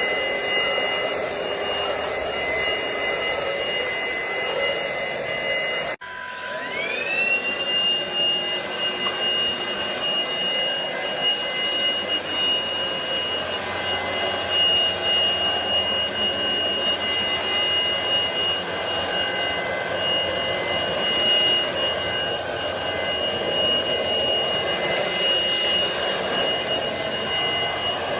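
Cordless vacuum cleaner running with a steady high-pitched motor whine. About six seconds in the sound breaks off sharply and the motor spins up again, its whine rising in pitch over about a second before it holds steady.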